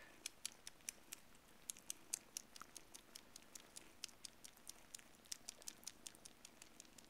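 Siamese kittens nursing on a plush toy squirrel: a quick, irregular run of soft clicks, about five or six a second.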